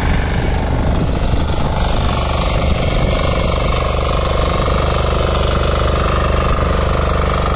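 Weima single-cylinder diesel engine on a walk-behind rotary power weeder, running steadily under load while its rotor tills the soil.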